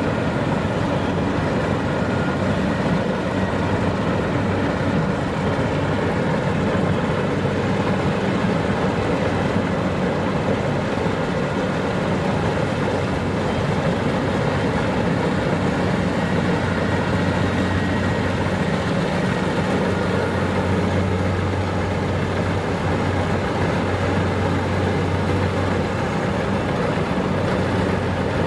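Kubota DC-70 Plus combine harvester's diesel engine running steadily under load, with an even low hum that holds without a break.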